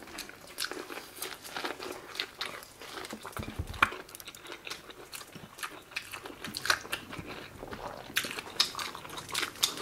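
Close-up eating sounds from a seafood boil: biting into corn on the cob and chewing, then king crab leg and shrimp shells cracking and snapping. Irregular sharp clicks and crunches come thickest near the end.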